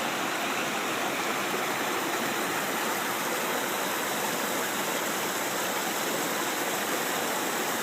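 Steady rush of running water from a woodland waterfall and stream.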